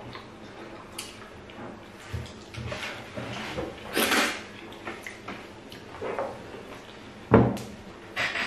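Loud wet eating sounds: fufu and light soup slurped and smacked straight from the hand, loudest about four seconds in. A single sharp knock, the loudest sound, comes near the end.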